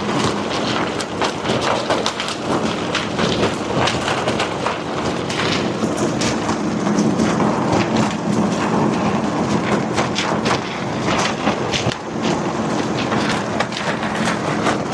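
Trekking pole tent fly and inner walls flapping and rattling in a blower's wind of about 60 mph, heard from inside the tent as a dense crackle of fabric snaps over the machine's steady hum.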